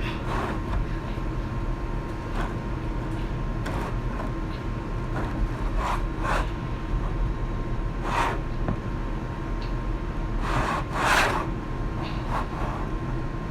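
Homemade slime being mixed and stirred in a bowl after more activator is added: irregular short rubbing, scraping strokes, the longest and loudest near the end, over a steady room hum.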